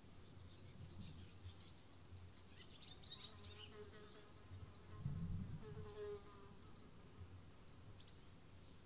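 A buzzing insect passing twice, about three and six seconds in, faint against soft rural ambience with scattered high chirps.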